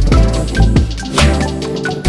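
Background music with a steady electronic beat: drum hits with sustained bass notes.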